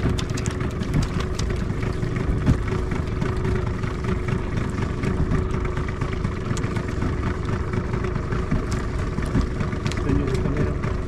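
A boat engine idling steadily, a constant hum under a rushing noise, with scattered light clicks.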